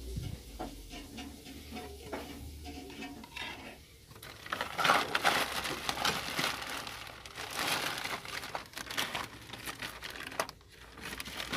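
Plastic bags and paper packaging rustling and crinkling as they are handled and pushed aside. The sound comes in irregular bursts, quieter for the first few seconds and louder from about four seconds in.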